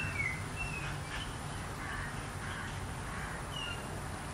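Birds calling over a steady outdoor hiss and low rumble: several short high chirps and some harsher, caw-like calls.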